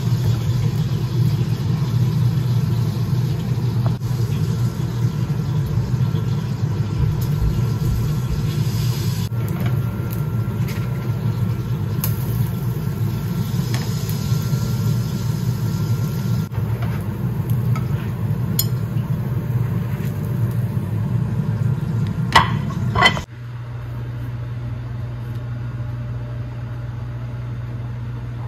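A steady low rumble, then two sharp clicks about twenty-two seconds in, after which it gives way to a steady low hum.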